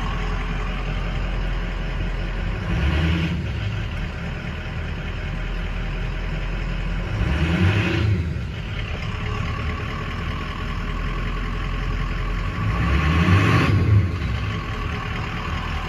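Ford 6.0 Powerstroke V8 turbo-diesel idling, heard from inside the cab, with three brief swells in loudness about three, seven and thirteen seconds in.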